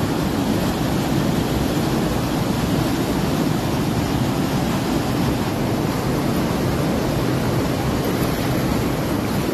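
Muddy floodwater rushing along a street and pouring through gateways in a steady, unbroken torrent.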